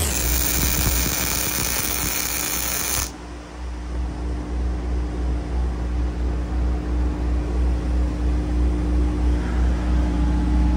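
MIG welding arc crackling and hissing steadily for about three seconds, then cutting off suddenly. An engine idles underneath with a steady low throb that carries on once the arc stops.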